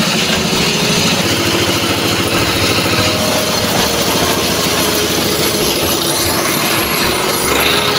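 Engine-driven shallow-well drilling rig running, its engine turning the drill through a belt and pulley: a loud, steady mechanical clatter with a fast low pulse.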